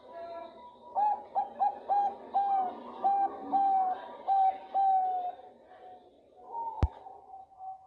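Female zebra dove (Bangkok-type perkutut) calling a male: a quick run of about ten short, clear coos, the later notes a little longer. A single sharp click comes near the end.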